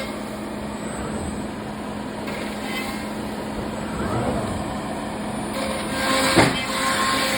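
Thermwood CNC router running: a steady machine drone with a constant hum under it. A short, sharp burst of noise stands out about six seconds in.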